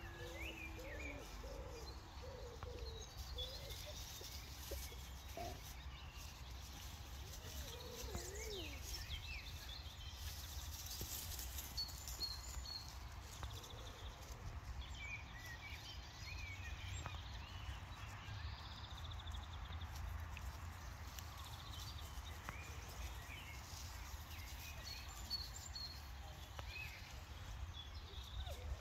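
Faint outdoor ambience: a low steady rumble with small birds chirping now and then.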